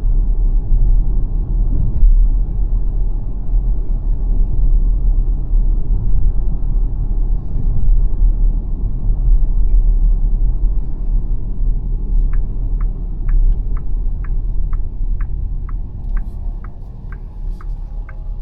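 Steady low road and tyre rumble from the Xpeng G9 electric SUV while driving, with no engine note. About two-thirds of the way through, a turn-signal indicator starts ticking about twice a second, and the rumble eases off.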